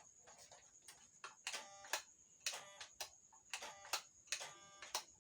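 Short squeaky plastic clicks, about two a second, as the plastic body and suspension of an MN45 FJ40 1:12 RC crawler are worked by hand. A faint steady high tone runs underneath.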